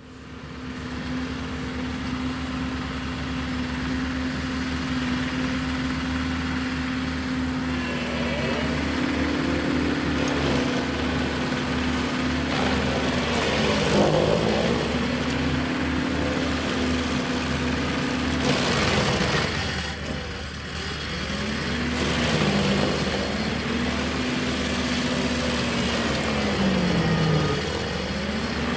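Gas engine of a stump grinder running at high speed, its pitch sagging and recovering again and again as the cutting wheel bites into the stump and loads the engine.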